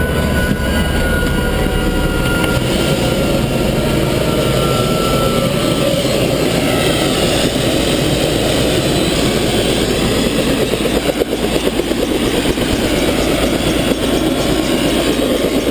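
Helicopter turbine engine and two-blade main rotor running on the ground at idle: a loud, steady rumble with a faint high whine.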